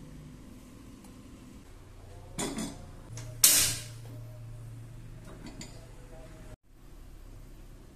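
Kitchen cookware handling over a low steady hum: a light knock about two and a half seconds in, then a sharp metal clank about three and a half seconds in that rings away over half a second.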